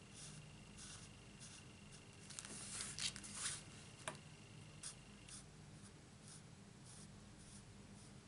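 Felt tip of a Stampin' Blends alcohol marker scratching across card stock in short, quick colouring strokes, with a sharper click about four seconds in.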